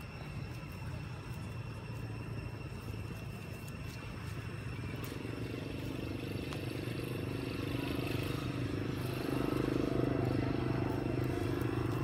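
A motor engine running steadily, growing louder through the second half as a second, higher hum joins in.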